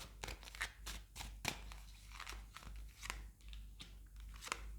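Tarot cards being handled: faint, irregular soft clicks and rustles as cards are drawn and laid down.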